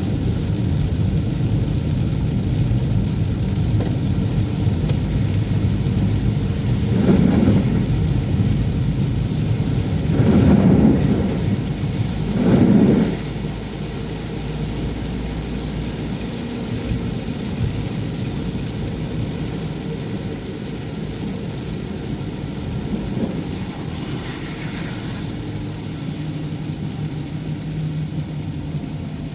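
Car driving through heavy rain: a steady low rumble of engine and tyres on wet road, with three louder swells in the first half and a brief hissing pass later.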